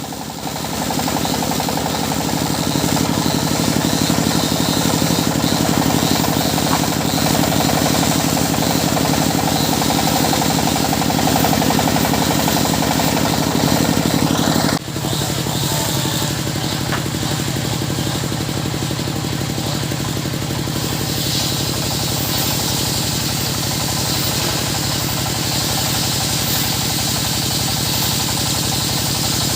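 Circular saw machine running steadily, a loud mechanical drone with a fast pulsing rhythm. It breaks off for an instant about 15 seconds in and carries on slightly quieter.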